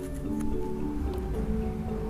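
Background music: held melodic notes moving from pitch to pitch over a steady low bass.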